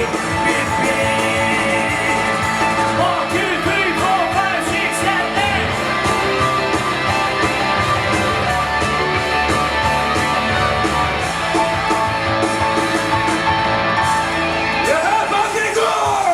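Rock song from a stage musical, performed live with guitar and a steady beat, with singing in places.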